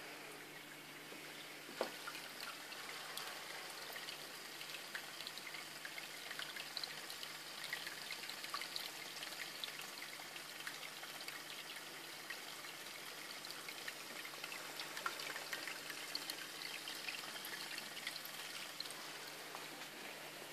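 Aquarium water trickling and bubbling, with many small ticks over a faint steady hum. A single sharper click comes about two seconds in.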